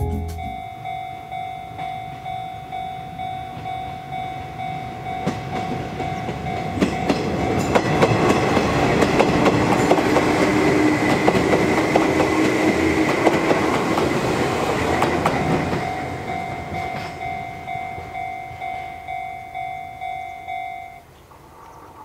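A train passing: wheel clatter swells to a peak about halfway through and then fades, pulsing at a regular beat, over steady ringing tones that stop abruptly near the end.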